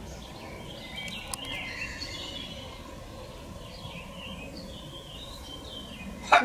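Small birds chirping and singing in short, curving phrases over a steady outdoor hiss; one sharp knock near the end.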